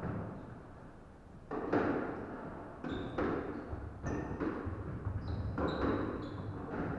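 Squash rally in an echoing court: a string of sharp ball hits off rackets and walls, beginning about a second and a half in, with short high squeaks of court shoes on the wooden floor.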